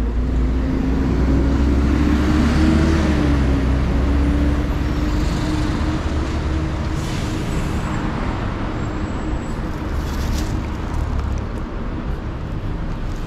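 Road traffic passing close by: cars, a truck and a bus driving past with engine and tyre noise. A low engine rumble is strongest in the first half and eases off later.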